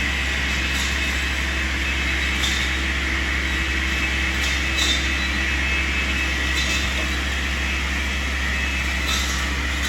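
Tree-trimming skidder with a rotary saw blade running at a distance: a steady mechanical drone with a thin high whine in it. A few brief sharper noises come through about every two seconds.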